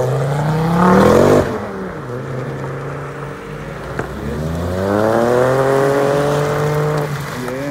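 Two cars accelerating hard away in turn. A Ford Focus's engine revs climb and cut off sharply about a second and a half in. Then a Ford Fiesta's engine climbs in a long rising pull that ends near the end.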